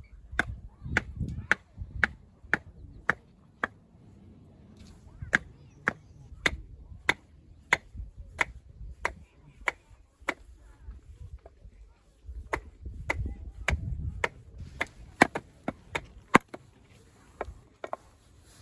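Knife chopping on a cutting board in a steady rhythm of about two strokes a second, with a short pause about two-thirds of the way through.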